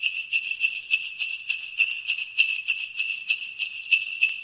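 Jingle bells shaken in a steady rhythm, about three shakes a second, a bright high ringing.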